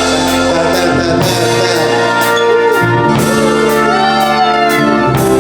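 Live pop-rock band playing an instrumental passage, with held chords and a steady drum beat, and a gliding melodic line about four seconds in.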